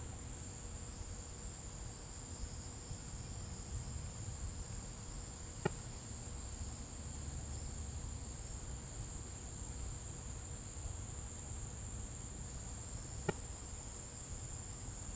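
Nighttime cricket chorus, a steady high-pitched shrill with no break, with two sharp clicks, about six and thirteen seconds in.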